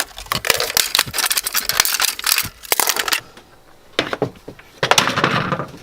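Rapid clicking and rattling of small metal parts being handled for about three seconds, then a single click and a short scraping rub near the end.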